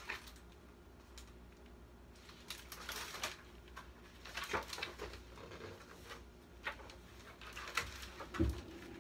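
Pages of a large picture book being handled and turned: a few soft paper rustles and flaps scattered through, over a faint steady hum.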